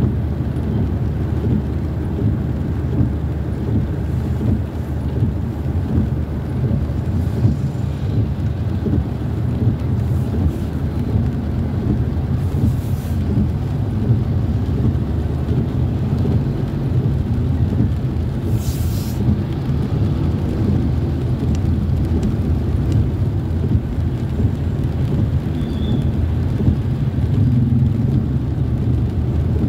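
Steady low rumble of engine and road noise heard from inside a vehicle's cabin, moving slowly in traffic on a wet road. Two brief hisses rise above it.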